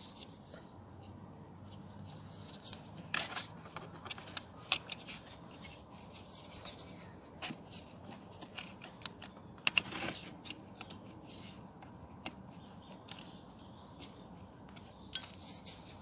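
Faint handling of a plastic headlight switch and its wiring connector: scattered sharp plastic clicks and light rubbing as the connector is plugged into the back of the switch. There are two short rustles about three and ten seconds in.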